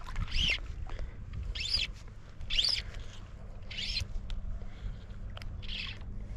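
Fly line being stripped in by hand through the rod guides, a short high-pitched zip about once a second, each pull rising and falling in pitch. A low steady rumble of wind and water runs underneath.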